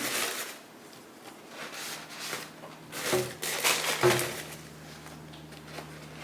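Rustling of packaging being handled in several short bursts as shoes are unwrapped, with two light knocks about three and four seconds in.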